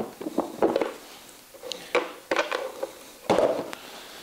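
Clicks and clatter of small metal bolts and the hard plastic airbox lid being handled and lifted off a motorcycle's airbox, with a louder knock about three seconds in.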